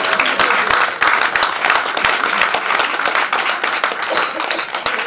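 Audience applauding: many hands clapping together, dense and steady.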